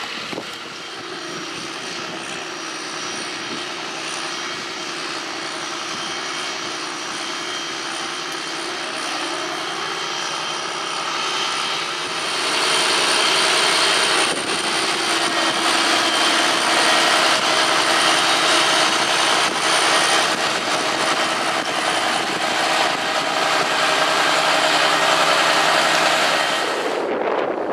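John Deere tractor's engine running steadily under load while pulling a drag-hose slurry injector, a steady drone with a thin high whine over it. It grows louder about twelve seconds in as the tractor comes close, and the sound changes abruptly just before the end.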